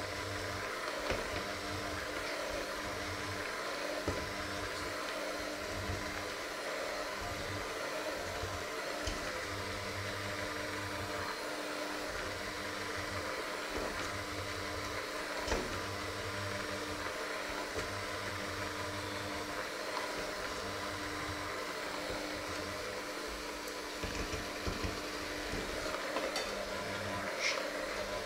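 Electric hand mixer running at a steady speed, its beaters working a dry flour mixture in a metal bowl, with a few short clicks along the way.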